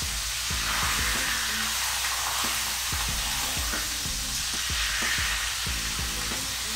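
Marinated chicken breasts sizzling as they sear in a hot skillet, a steady hiss that signals the pan is at the right searing temperature. Metal tongs knock against the pan now and then as the pieces are laid in and moved.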